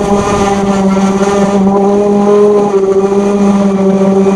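Handheld power sander running steadily against a car door's painted panel, a constant motor hum whose pitch shifts slightly about two-thirds of the way through.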